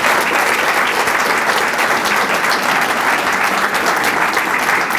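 Audience applauding steadily, a dense sustained clapping from a roomful of people.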